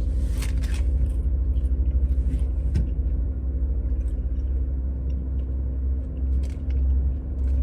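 Steady low rumble of a car heard from inside the cabin, with a constant hum and a few faint clicks.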